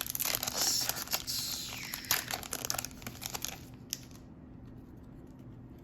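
Foil booster-pack wrapper crinkling and tearing as it is opened by hand, a dense crackle for about four seconds that then dies away.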